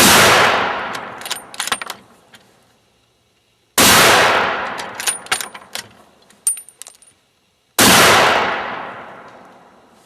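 Three rifle shots about four seconds apart, each with a long echoing tail: a 3-shot group fired for sighting in. Light metallic clinks follow each shot.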